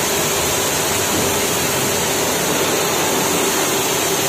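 High-pressure washer spraying a steady jet of water, rinsing foam off a motorcycle: an even, continuous hiss of spray.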